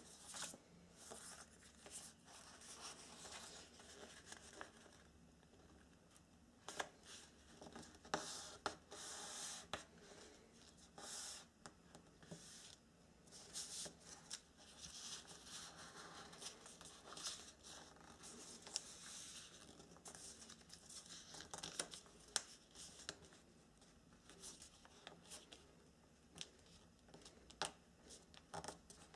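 Origami paper being folded and creased by hand: faint, irregular rustling and crinkling, with short scrapes as fingers press and slide along the folds.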